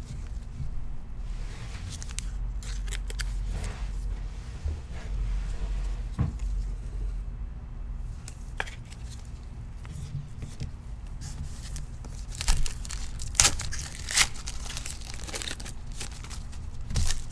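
A trading-card pack wrapper being torn open and crinkled, in irregular rustling bursts that are loudest and sharpest near the end.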